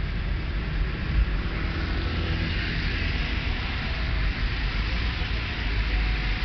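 Steady city traffic: engines rumbling low and tyres hissing as cars, taxis and a motorbike pass on a wet road.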